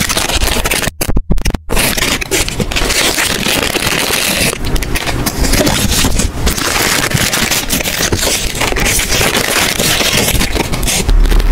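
Plastic ice-cream-bar wrappers crinkling and rustling as they are torn open and the bars slid out. The sound is briefly broken by a few short silent gaps about a second in.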